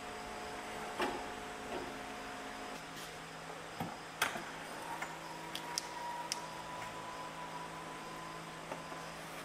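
Steady workshop hum with a few scattered light metallic clicks and knocks from handling tools and tractor parts, the loudest about four seconds in.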